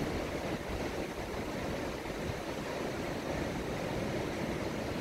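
Steady wash of Gulf surf breaking on the beach, a continuous even rush without distinct calls or knocks.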